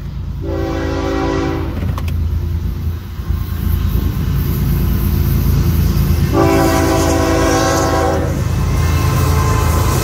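Florida East Coast Railway diesel train approaching: its locomotive horn sounds twice, a shorter blast about half a second in and a longer one about six seconds in, over the low rumble of the engines that grows louder as the lead locomotive comes up and passes near the end.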